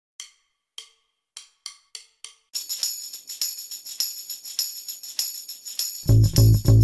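Intro music: six separate jingling percussion hits, then a fast, steady jingling beat from about two and a half seconds in, with a loud, low bass part coming in near the end.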